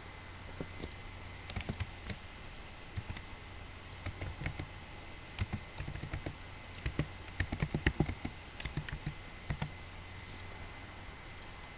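Computer keyboard being typed on: irregular key clicks in short runs, quickest a little past the middle, over a faint steady low hum.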